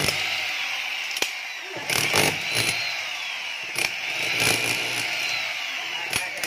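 Electric power drill boring into a concrete hollow-block wall, running steadily with its pitch sliding a little as the bit loads. Sharp knocks and rattles come through several times as the bit bites into the block.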